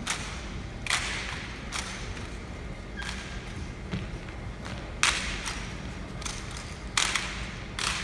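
Sharp cracks and thuds from an armed drill platoon's rifle and boot work on a hard floor, about ten at irregular intervals, the loudest about five and seven seconds in, each ringing briefly in the large hall.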